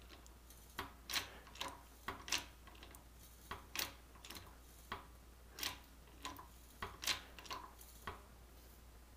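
Irregular sharp clicks and ticks, about two a second, from a hand-pumped hydraulic shop press as pressure is built up on a bent steel rod.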